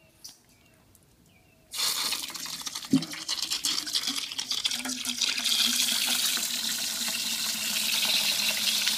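An outdoor wall tap turned on about two seconds in, its water gushing and splashing into a stainless-steel dog bowl as the bowl fills.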